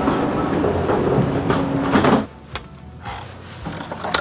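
Hotel elevator humming as its doors slide open, the hum cutting off sharply about two seconds in; a few short clicks and knocks follow.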